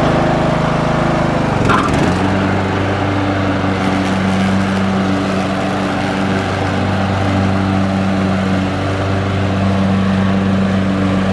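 Troy-Bilt 42-inch lawn tractor's engine running steadily while mowing, its note shifting briefly about two seconds in and then holding steady.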